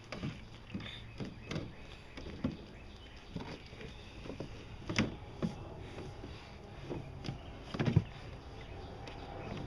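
Irregular knocks, taps and scrapes of plastic jugs being handled against a plastic wheeled trash bin, with a sharper knock about five seconds in and another near eight seconds.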